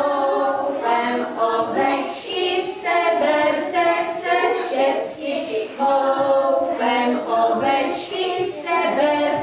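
A group of young children singing a song together without instruments, with a short break between phrases about six seconds in.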